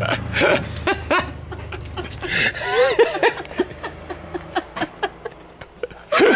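A woman giggling and laughing in short breathy bursts, with a louder burst of laughter near the end.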